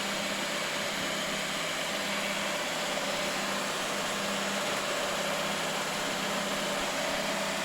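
Huron MU 5 milling machine running with its table traversing on the Y axis under the feed motor: an even machine hum with two steady tones, unchanged throughout.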